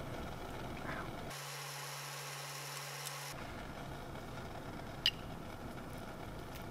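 Light handling sounds of a small blade working a wax skate-truck pattern on a metal workbench, over steady background hiss, with one sharp click about five seconds in.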